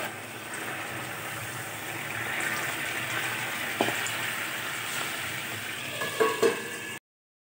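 Tomato pieces sizzling in hot oil and water in an aluminium kadai as tomato chutney cooks, with a sharp click a little before four seconds in. Two metal clanks about six seconds in as a steel plate is set over the kadai as a lid.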